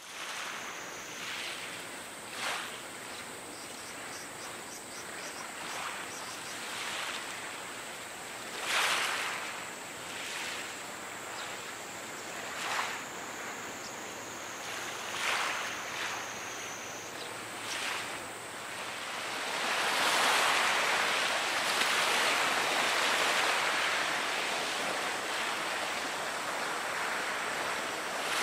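Wind and harbour-water noise: a steady rush with short surges every few seconds, growing louder about two-thirds of the way through, over a faint, steady high-pitched whine.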